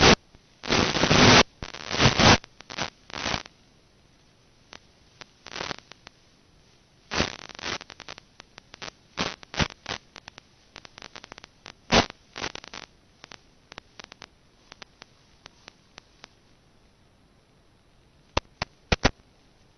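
Radio static from an FPV video receiver's audio channel with no microphone on the plane: irregular crackles and short bursts of hiss. The hiss comes in bursts in the first few seconds and again around seven and twelve seconds in, with only scattered clicks near the end.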